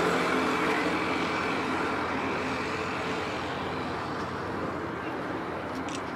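A motor vehicle passing close by and fading away, its engine hum dying down over several seconds against steady street noise.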